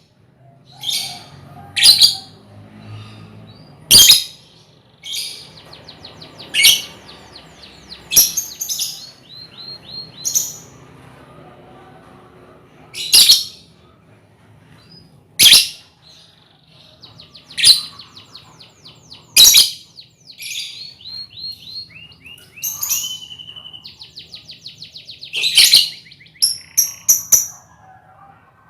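A colony of young lovebirds calling: loud, shrill chirps every second or two, with fast chattering trills in between.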